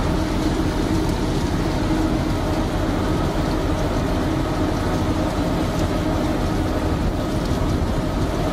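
A fishing trawler's engine and deck machinery running with a loud, steady drone and a low hum.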